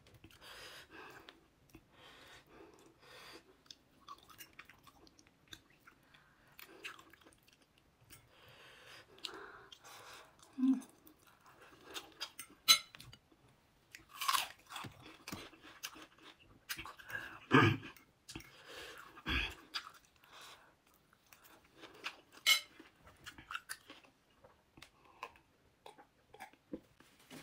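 A woman eating close to the microphone: chewing with wet mouth sounds, broken by several louder crunchy bites.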